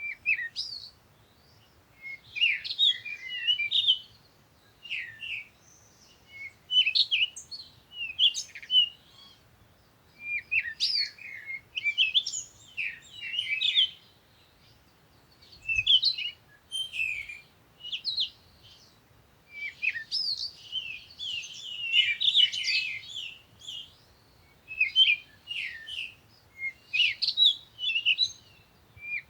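Small songbirds chirping and twittering: quick phrases of high, fast-sliding notes every second or two, with short pauses between.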